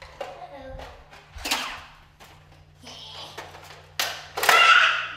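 Plastic clicks and knocks from a jammed Nerf blaster being worked to clear a stuck dart, with a child's voice briefly and a loud vocal cry a little after four seconds, the loudest sound.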